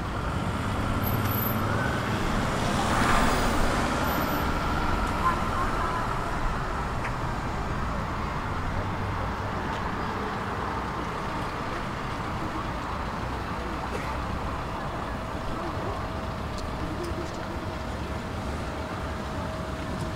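Road traffic: cars driving past on a city street, one passing close about three seconds in, over a steady background hum of traffic.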